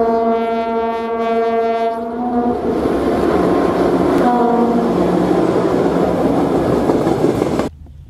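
Diesel freight locomotive sounding a horn blast of about two and a half seconds, then a short second blast about four seconds in, over the loud running of the passing train. The sound cuts off suddenly near the end.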